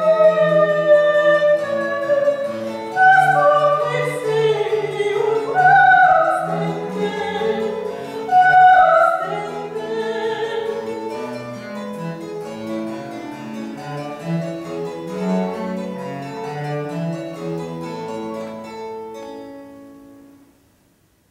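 Soprano singing the closing phrases of a Baroque sacred piece with vibrato, over cello and harpsichord continuo. The music grows quieter and the last notes die away about 20 seconds in.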